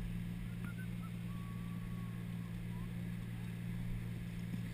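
Detroit 6-71 two-stroke diesel engine of a motor boat running steadily at low speed. A few faint, short, high calls sound over it in the first half.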